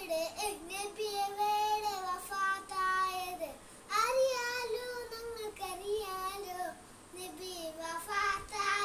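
A young boy singing solo, unaccompanied, in long held notes that glide in pitch, with a short break for breath about three and a half seconds in.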